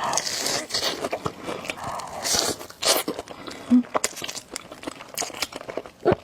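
Close-miked eating of spicy noodles: chewing and biting, with many short sharp mouth smacks and bursts of hissy noise.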